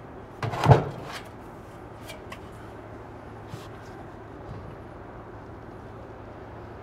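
Skylight flashing flipped over and set down on the roof's flat metal plate: one thump under a second in, then a few light taps as it is pressed into place, over a steady low hum.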